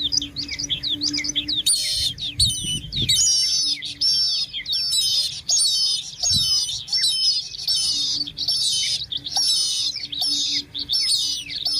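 Birds calling: a dense run of high, repeated chirping notes, several a second, that grows louder about two seconds in.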